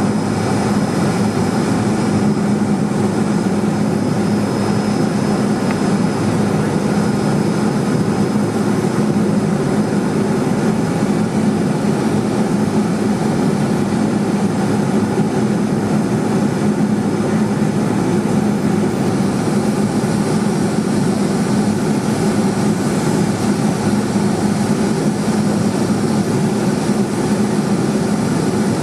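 Steady drone of a Cessna 210 Silver Eagle's single turboprop engine and propeller in flight, with a constant low hum and a faint high whine that fades out in the first third.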